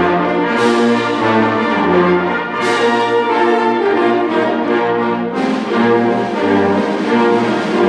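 A wind orchestra of woodwinds, brass and percussion playing a Christmas carol live in a concert hall, with sustained chords and sharp crashes about half a second and two and a half seconds in.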